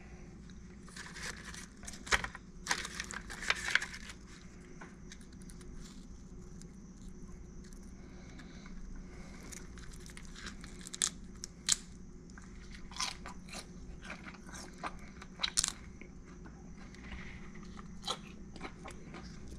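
Crunching bites and chewing of grilled softshell crab, the crisp shell and claws cracking in scattered clusters of sharp crunches, over a faint steady hum.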